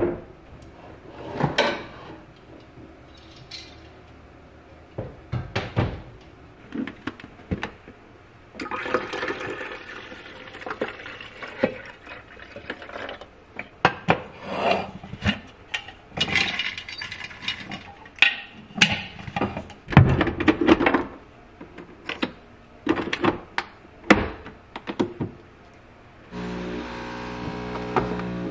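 Kitchen handling sounds: repeated clicks, taps and knocks of a glass coffee-pod jar, its lid and a mug, with a stretch of steady noise from about a third of the way in. A steady machine hum starts shortly before the end.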